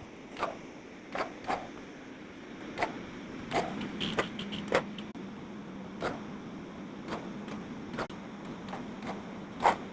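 Small electric motor of a toy off-road car whirring steadily, louder from about a third of the way in, with scattered clicks and knocks as it drives over the track.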